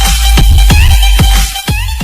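Electronic music with heavy bass, a fast regular beat and falling synth sweeps, played as a meme sound-effect clip.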